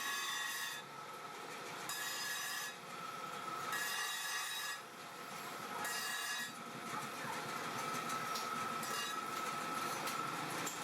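Steel being worked with an abrasive, like a file on forged blacksmith tongs: repeated rasping strokes about every two seconds, settling into a steadier rasp after about seven seconds.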